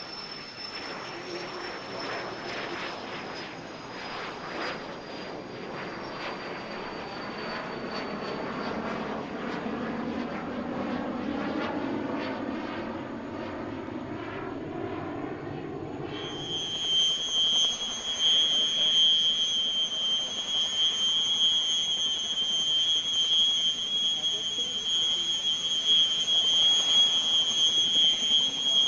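Hispano HA-220 Super Saeta's jet engines in flight: a rushing jet noise with a high whine falling slowly in pitch. About sixteen seconds in it cuts to a louder, steady high-pitched jet engine whine.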